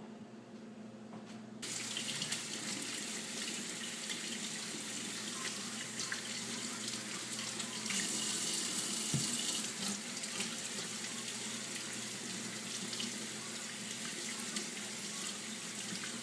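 Tap water running over beets as they are rinsed clean; the water comes on about a second and a half in and then runs steadily.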